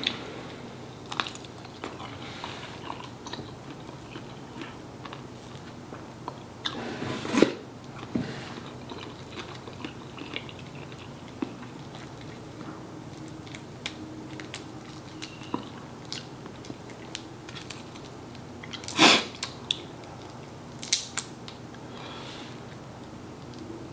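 A person eating a spicy shrimp and chicken curry meal: chewing and biting with wet mouth clicks, plus a few louder sharp smacks or crunches about 7, 19 and 21 seconds in.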